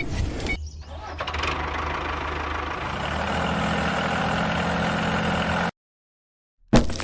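A small vehicle engine running steadily, starting about half a second in and cutting off abruptly near the end.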